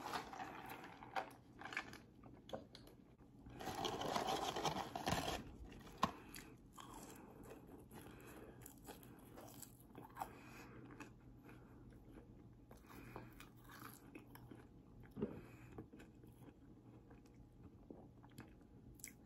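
A person chewing food close to the microphone, with soft crunching and mouth sounds, and a louder stretch of crunching about four seconds in.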